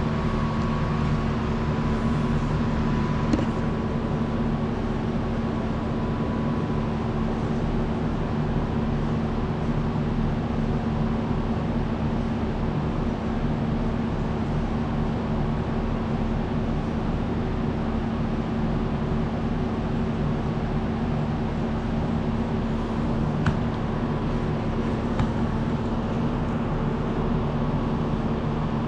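Heavy diesel engine of a front-loader garbage truck idling, a steady low hum that doesn't change, with a couple of brief clicks.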